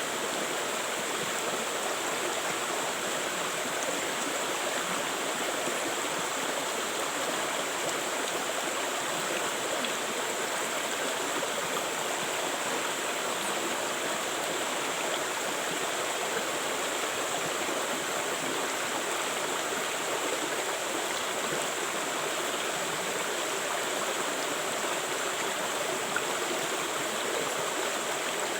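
A river flowing: a steady, even rush of running water with no breaks.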